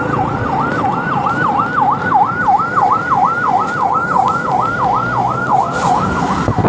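Ambulance siren on a fast yelp, its pitch sweeping up and down about four times a second, over low road rumble.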